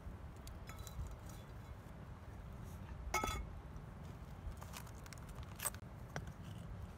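Metal knife clinking and rattling against a cast-iron pan as the pan is handled and set down. The loudest is a single ringing clink about three seconds in, with a few lighter clicks before and after.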